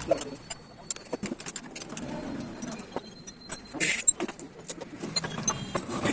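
Scattered metallic clicks and clinks of hand tools working on a motorcycle engine during dismantling, with a short hissing burst about four seconds in.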